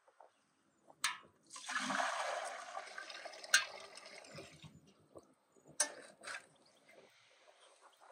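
Water poured from an enamel bucket into a large aluminium pot: a rushing splash lasting about three seconds, loudest at first and tapering off. A few sharp knocks come before, during and after the pour.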